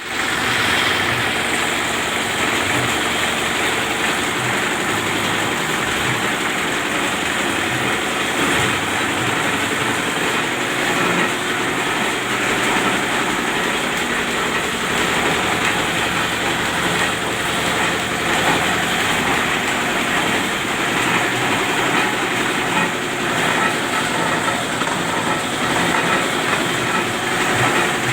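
Wok-type meatball grinding machine with a 65 cm wok, running steadily with a continuous, even mechanical noise.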